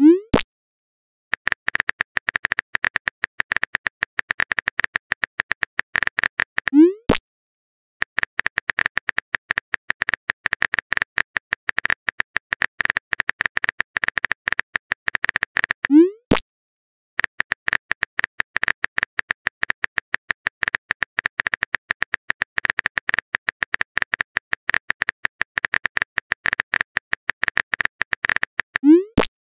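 Texting sound effects: long runs of rapid phone-keyboard tapping clicks, each ending in a short rising pop as a chat message bubble appears. The pop comes four times, at the start, about a quarter of the way in, just past halfway and near the end.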